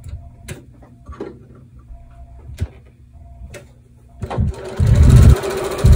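Sewing machine stitching a paper-pieced seam: after a few light clicks, the machine starts about four seconds in and runs in two short bursts of fast, even stitching.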